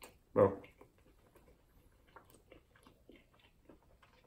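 Faint mouth sounds of a man chewing food, small irregular wet clicks, after a brief voiced sound from him about half a second in.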